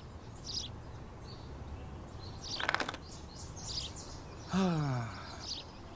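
Garden birds chirping in short high calls, with a brief rapid trill about halfway through. Near the end a man's voice lets out a short, falling sigh.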